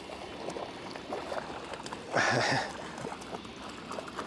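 Hooked trout splashing and thrashing at the water's surface beside the boat while being landed, with one loud splash about two seconds in lasting about half a second.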